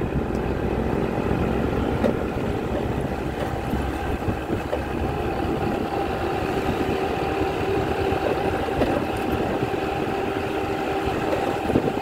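Steady engine drone and road noise from a moving vehicle, with a few held tones over a low rumble.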